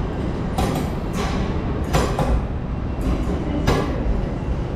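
Great Western Railway multiple-unit passenger train moving slowly past the platform. A steady low rumble is broken by sharp irregular clacks, about one every half second to second, as the wheels cross the track.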